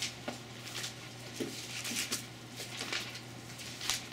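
Bible pages being leafed through: a string of short, irregular paper rustles and flicks.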